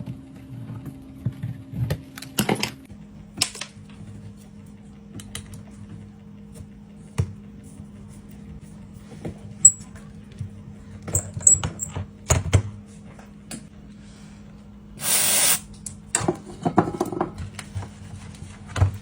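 Scattered clicks and taps of small repair tools and parts on a phone at a workbench, over a steady low hum. A short hiss comes about fifteen seconds in.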